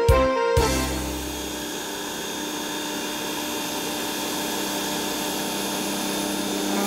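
Steam-cleaning machine running steadily: an even hiss over a faint motor hum. The last notes of background music end about half a second in.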